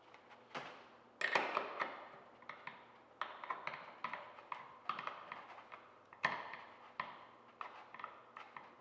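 Ratcheting wrench on an 8mm socket clicking as the flanged bearing nut is turned onto the pedal axle: bursts of quick metallic clicks, about one burst a second, with short pauses between strokes.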